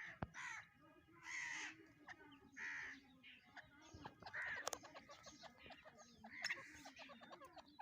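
Black francolin calling faintly: a string of short calls, one every one to two seconds.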